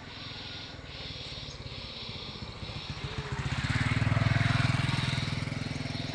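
Motorcycle engine passing by, growing louder about three seconds in and then fading.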